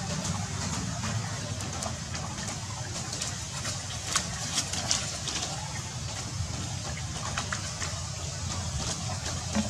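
Monkeys splashing and running through a shallow puddle, with a few sharp splashes about four to five seconds in, over a steady low hum.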